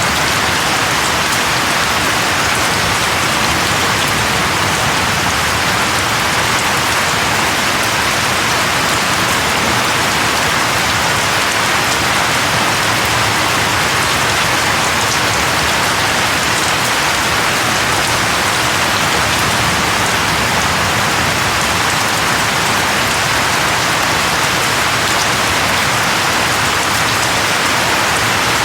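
Steady, even rain falling on a surface, a dense hiss with no let-up.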